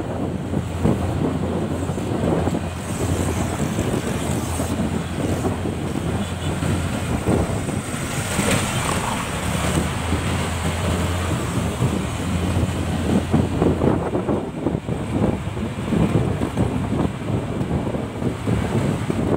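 Wind buffeting the microphone of a moving motorcycle, over a steady engine drone and road noise from the traffic around it, with a brief louder hiss about eight seconds in.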